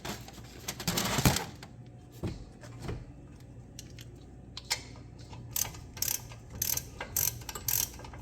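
Ratchet wrench clicking as the brake caliper bolts are tightened, in short runs of clicks that start about five seconds in, after a brief louder noise about a second in.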